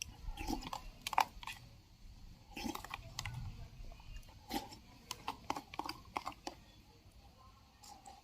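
Someone eating chicken: scattered small clicks and crunches from chewing and handling the food, coming at irregular intervals.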